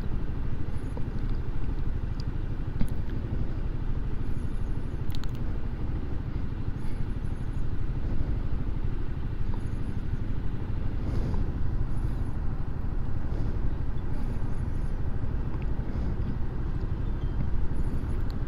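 Motor scooter engine idling steadily, a low even rumble, with faint high beeps recurring about every second and a half.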